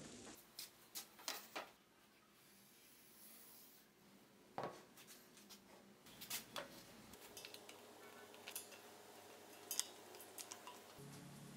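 Faint, scattered clinks and knocks of steel desk legs being handled and set down on a plywood desktop, with some rustling of plastic wrap.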